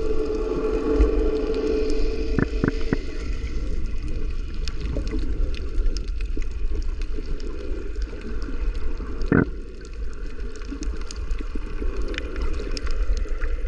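Water gurgling and lapping under a steady low rumble, with a few scattered small clicks.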